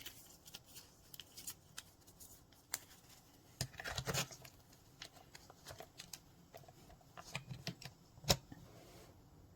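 Small plastic clicks, taps and rustles of hands fitting a roll of thermal label paper into a mini thermal label printer. There is a denser burst of handling about four seconds in and a single sharp click a little after eight seconds.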